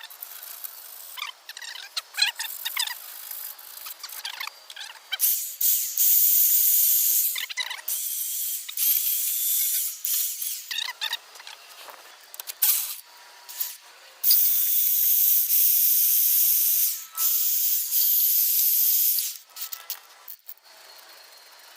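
Aerosol spray paint can spraying in several hissing bursts of a few seconds each, with short clicks and scrapes before and between them.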